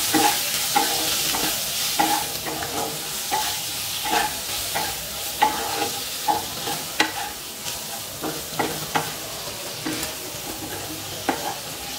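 Ridge gourd and potato pieces sizzling in mustard oil in a nonstick kadai while a wooden spatula stirs them, with frequent scrapes and taps of the spatula against the pan. The vegetables are being sautéed with ground spices.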